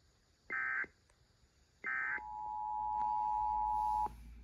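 Emergency Alert System end-of-message data bursts: two short, identical warbling SAME bursts about a second and a half apart, marking the end of the alert. They are followed by a steady EAS attention tone of about two seconds, which cuts off sharply.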